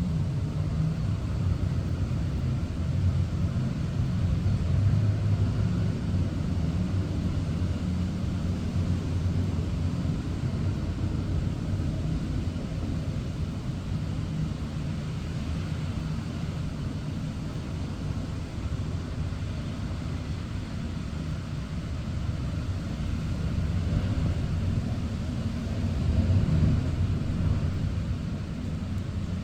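Road traffic on a rainy morning: a steady low rumble of cars over a constant hiss of rain. The rumble swells as vehicles pass, about four seconds in and again near the end.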